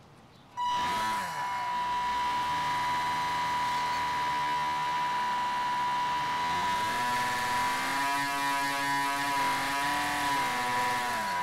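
Electric motor and air propeller of a small RC airplane, converted to a boat, running under throttle: a steady whine with a high tone that starts about half a second in. Its pitch rises about seven seconds in and falls back near the end as the throttle changes.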